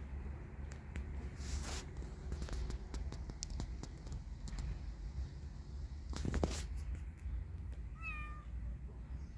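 Tabby kitten giving one short meow near the end. A couple of seconds before it comes a brief, louder noisy rustle, and a low rumble runs underneath.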